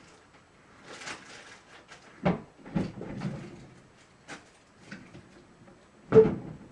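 Knocks and handling noises: a brief brushing rustle, two sharp knocks about half a second apart, a couple of light clicks, then the loudest knock near the end.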